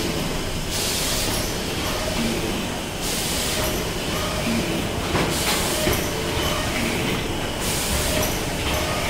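Automatic hardcover case-making machine running: a steady mechanical clatter, with a hiss that comes and goes about every two to three seconds.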